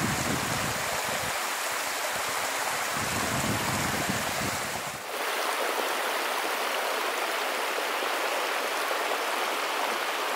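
Mountain stream water flowing and splashing over rock ledges in a steady wash of sound. About five seconds in, after a short dip, the low rumble drops away and a thinner rush of running water remains.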